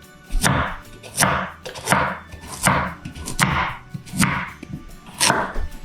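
Kitchen knife chopping carrots on a cutting board, slicing them into rounds with steady, evenly spaced cuts, about one every three-quarters of a second.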